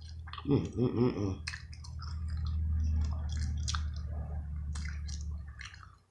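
A person chewing crisp fried rainbow trout close to the microphone: wet, crunchy chewing with small clicks, and a short voiced 'mm' about a second in. A low steady hum runs underneath, loudest in the middle, and stops just before the end.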